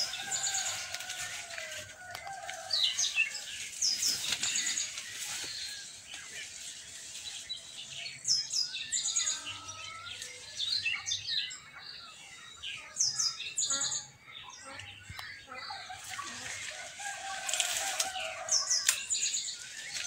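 Birds chirping in quick, high-pitched calls again and again, with a longer, lower, drawn-out call near the start and again near the end.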